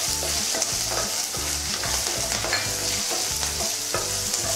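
Whole spices, chillies and curry leaves sizzling in hot oil in a non-stick frying pan while a spatula stirs and scrapes them round, with a steady high hiss and small scattered clicks of the spatula and seeds against the pan.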